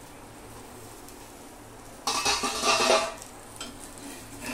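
Stainless steel plate and iron tawa clanking and scraping together for about a second, beginning about two seconds in, as the plate used as a lid is lifted off the pizza.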